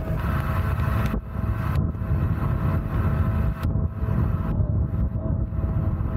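Mini jet boat's engine running steadily under way, with wind and water rush over it that comes and goes.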